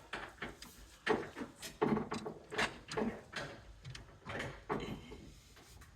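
Irregular scraping and knocking as thick service wire is pushed and pulled through conduit into a breaker box.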